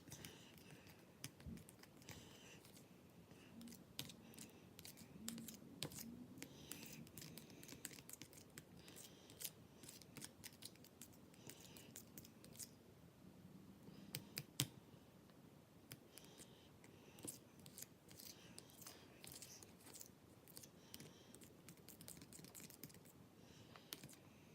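Faint, irregular sharp clicks and scrapes, dozens of them, as of small objects being handled close by.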